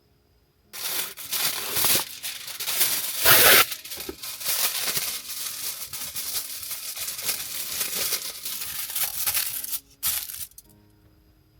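Crinkling and rustling handling noise, with a louder tearing burst about three seconds in and a brief last rustle near the end.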